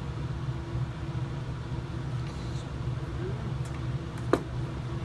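Steady low mechanical hum with a faint steady tone, and a single sharp click a little over four seconds in.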